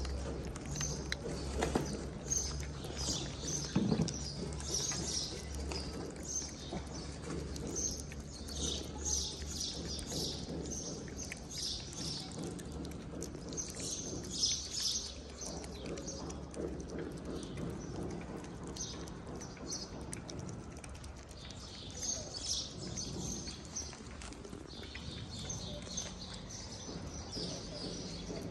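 Cats chewing chunks of wet cat food close to the microphone, a low irregular crackle of small clicks, while birds chirp in short bursts over and over in the background.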